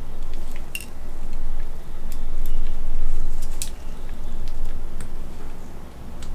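Gloved hands handling and posing a plastic-armoured action figure with a metal frame: rubbing and handling noise that swells and fades, with scattered small clicks of parts and joints.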